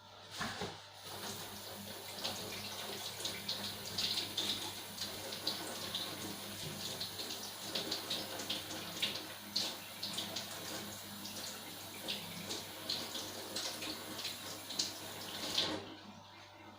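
Tap water running and splashing as a freshly gold-plated metal bar is rinsed under it, washing off the plating solution. The water starts about a second in and stops suddenly shortly before the end.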